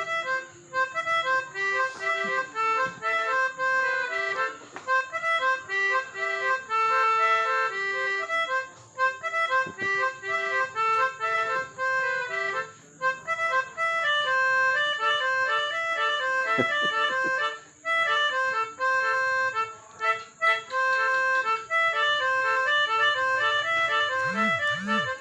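Multi-tone 'telolet' musical vehicle horn playing a tune of held notes that change every fraction of a second, with short breaks between phrases.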